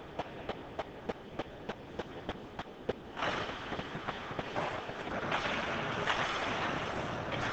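Steady rhythmic clapping at an ice hockey rink, about three claps a second, stopping about three seconds in. Then a steady hiss of skates scraping the ice and general arena noise as play gets going.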